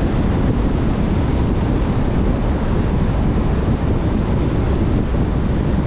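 Steady rush of wind buffeting the microphone together with road noise from a vehicle travelling at speed on a highway.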